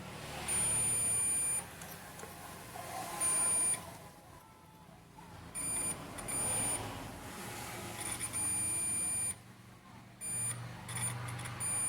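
Digital multimeter's continuity buzzer beeping in a series of high-pitched beeps, some brief and some over a second long, as the probes are touched across a power transistor taken off an SMPS board. Each beep is a short reading: the transistor is shorted.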